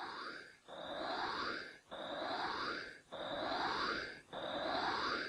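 A sound example played back over the hall's loudspeakers: a rushing, hissing noise that repeats about every second and a quarter, each pass holding a rising sweep, with a brief dip between passes.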